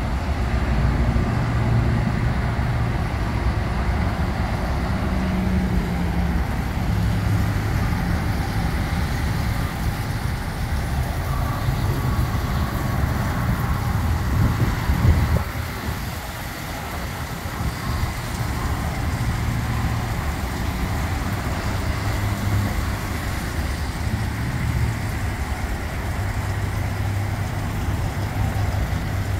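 Steady road traffic noise from a nearby highway, a low rumbling hiss, with a brief louder swell about halfway through.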